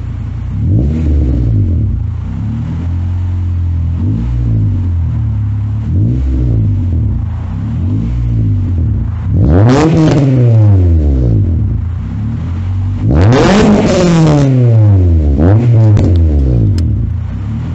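Honda Prelude's H22A4 2.2-litre four-cylinder revving through a 1320 header, 2.5-inch exhaust, resonator and muffler. Several short throttle blips from idle, then two long, high revs about ten and thirteen seconds in, each falling back to idle, and a couple more short blips near the end.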